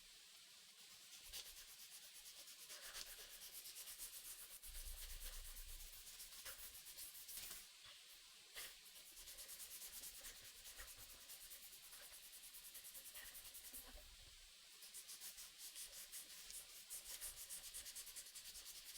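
Sandpaper rubbed back and forth by hand over a wooden knife handle: a faint scratchy hiss in quick, repeated strokes.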